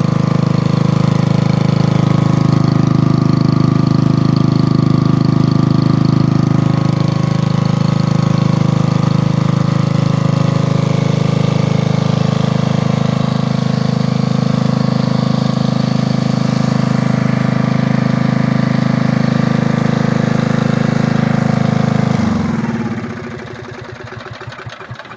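An old portable generator's small single-cylinder, air-cooled engine runs steadily. About 22 seconds in it is shut off, and it coasts down to a stop with a falling pitch.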